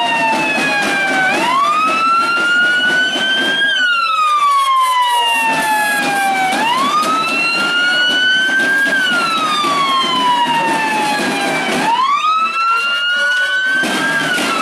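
Police pickup truck's siren in wail mode: a pitch that climbs and then sinks slowly, repeating about every five seconds.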